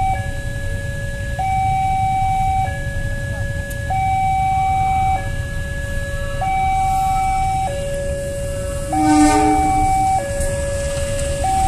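Railway level-crossing warning siren alternating steadily between a higher and a lower tone, each held about a second, signalling that the gates are down for an oncoming train. About nine seconds in a horn sounds for about a second, the loudest sound here, over a low rumble of waiting traffic.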